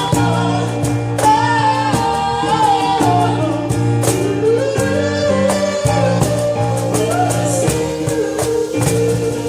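Live band music: a singer holds long, gliding notes without clear words over sustained chords and bass.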